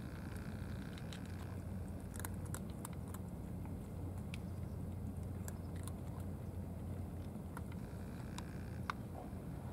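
Cats chewing dry kibble from plastic trays: scattered short, sharp crunches over a steady low rumble.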